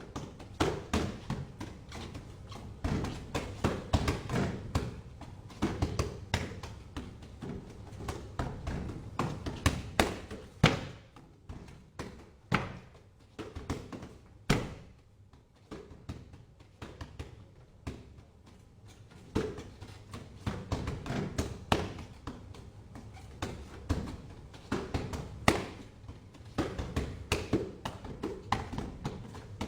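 Wing Chun fist strikes landing in quick flurries of taps and thuds, thinning out to a few single hits partway through before the rapid flurries return.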